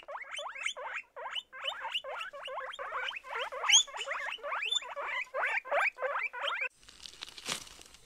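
Guinea pigs squeaking in a fast, continuous run of short rising calls, about four or five a second. The calls cut off abruptly near the end, leaving a soft hiss with light rustling.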